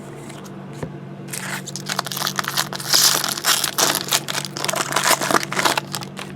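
Foil wrapper of a trading card pack being torn open and crinkled, a dense crackling that starts about a second in and stops just before the end.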